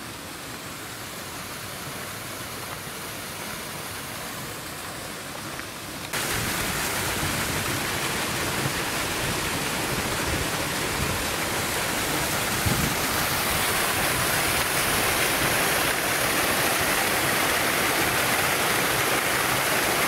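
Running and falling water: a steady rush that jumps abruptly louder and brighter about six seconds in, then holds steady.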